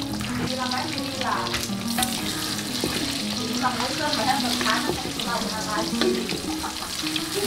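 Food sizzling as it fries in a pan, a steady crackling hiss with many small pops, over background music.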